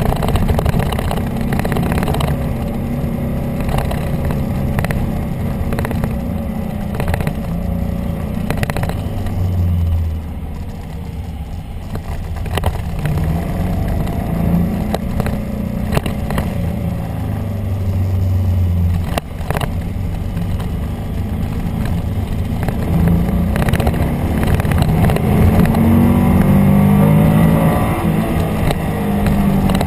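Motorcycle engine running under changing throttle, its note rising and falling, with wind rushing over the bike.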